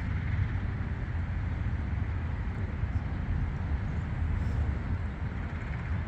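Steady low rumble of outdoor background noise, with no distinct events.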